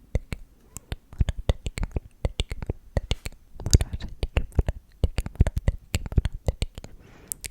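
Close-microphone ASMR trigger sounds: many sharp, irregular clicks, several a second, with a brief breathy whisper-like haze a little past the middle and near the end.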